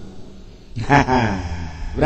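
Speech only: a man lecturing pauses briefly, then speaks one drawn-out word that falls in pitch, about a second in.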